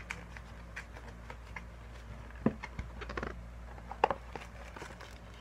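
A postal mailing bag being handled and torn open by hand: scattered rustles, crinkles and small clicks, with the sharpest sounds a little over two seconds in, around three seconds in and about four seconds in.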